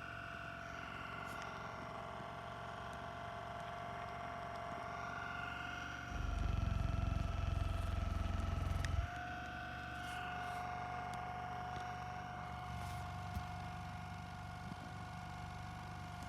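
MKHS percussion massage gun running with a steady motor whine. About six seconds in it gets louder with a low drumming for about three seconds, then the whine steps slightly higher in pitch.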